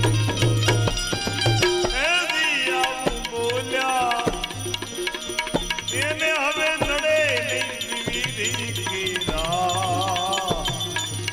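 Devotional bhajan music: a melody with gliding, wavering notes over tabla-style drumming, rattling hand percussion and a pulsing low drone.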